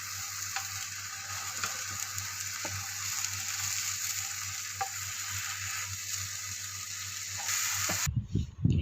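Tosai (dosa) sizzling on a hot pan as a steady hiss, with a few light clicks. The sizzle cuts off suddenly near the end.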